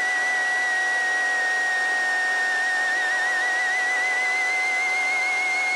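Helicopter running on the ground before takeoff, heard through the cockpit intercom: a steady high whine over a constant hiss, with fainter steady tones beneath. The whine wavers slightly in pitch about halfway through and rises a little near the end.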